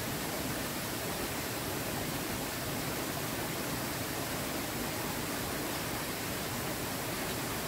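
Steady rush of a shallow rocky river flowing over stones, an even wash of water noise that does not change.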